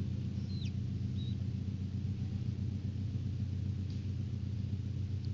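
A steady low machine hum, with a chick's faint high peeps over it: one falling peep about half a second in and a shorter one about a second in.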